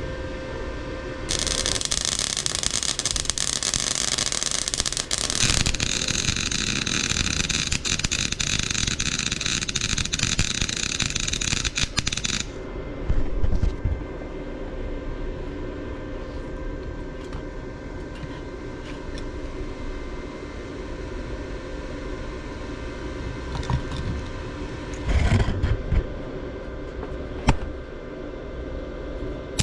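Electric welding arc hissing in two runs from about a second in until about twelve seconds in, over the steady hum of the welding machine. A few knocks follow later.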